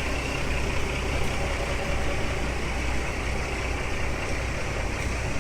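Helicopter running steadily, its rotor and engine making an even, deep low-end rumble with a lighter hiss above.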